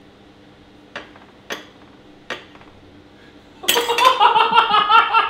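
Three light clinks of cutlery on a plate, then loud, hearty laughter bursting out about three and a half seconds in.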